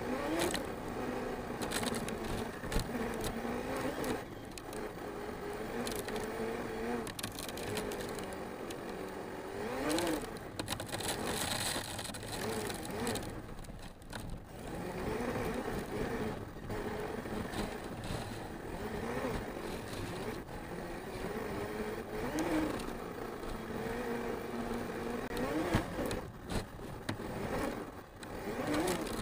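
Onboard sound of an Arrma Mojave 6S RC truck's brushless electric motor whining, its pitch rising and falling again and again with the throttle. Frequent knocks and scrapes come from the chassis bouncing over rough dirt and grass.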